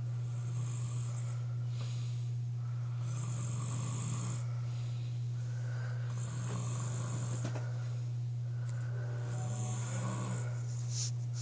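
A man snoring loudly in deep sleep, each breath a rasping snore, a few seconds apart and evenly spaced. A steady low hum runs underneath throughout.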